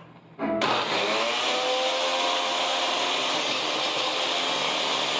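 Countertop blender switched on about half a second in, its pitch rising briefly as the motor comes up to speed, then running steadily as it chops a jar packed with onion, green pepper and garlic.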